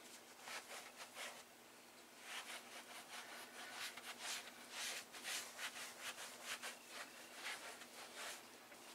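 Foam sponge applicator rubbed back and forth over a recliner's worn upholstery, working in recolouring balm: faint, rhythmic swishing.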